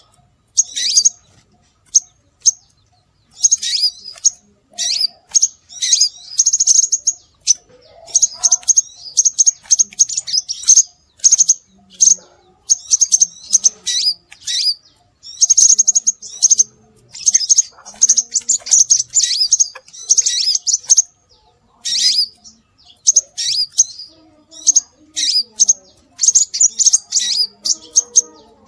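Scarlet minivet calling: quick runs of shrill, very high chirping notes, repeated in clusters with short pauses between them.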